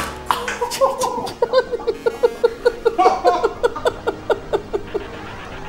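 A man laughing helplessly: a long run of quick, high-pitched, evenly spaced gasping pulses, about five a second, tailing off near the end.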